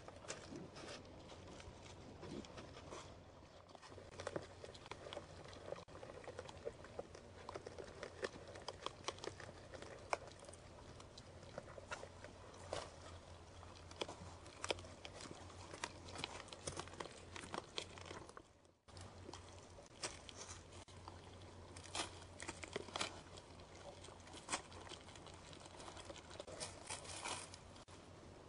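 White-tailed deer feeding at a seed and corn pile: irregular crunching and crackling clicks from chewing and from stepping in dry leaves, over a low steady hum.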